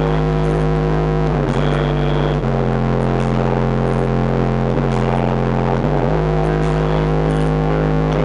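Loud bass-heavy music played through a car audio system with an Earthquake DBX12R subwoofer: long, held bass notes that step to a new pitch every second or two.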